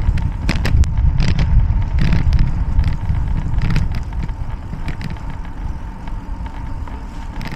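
Wind rumble on the microphone and tyre noise from a bike rolling over cracked asphalt, with scattered clicks and rattles. The rumble eases after about four seconds.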